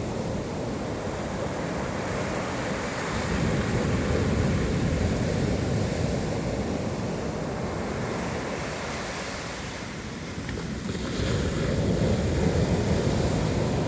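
Sea waves breaking and washing on the shore, the surf swelling and easing in slow surges, with wind on the microphone.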